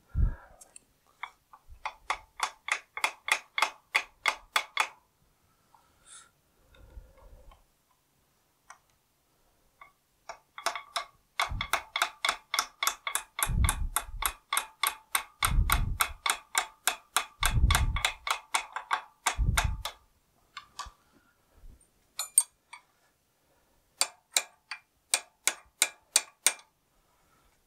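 Hammer tapping a steel punch against a David Brown 990 clutch pressure plate: rapid light metallic taps, about six a second, in three runs. The middle run has four heavier thumps about two seconds apart. The owner blames this tapping for knocking a lug off the pressure plate.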